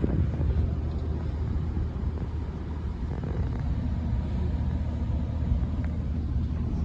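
Liebherr R946 long-reach excavator's diesel engine running steadily, its sound sitting deep and low.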